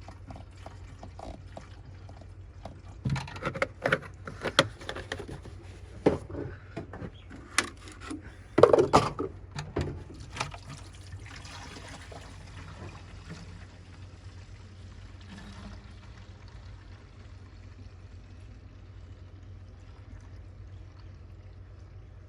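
Water being poured into a car's windscreen washer bottle. First comes a run of knocks and clatters, the loudest about nine seconds in, then several seconds of steady pouring.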